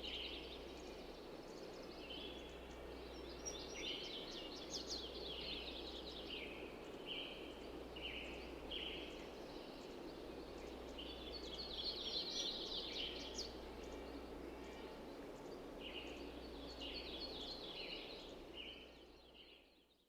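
Birds chirping in repeated quick bursts of high calls over a steady background hiss and low hum of outdoor farmyard ambience, fading out near the end.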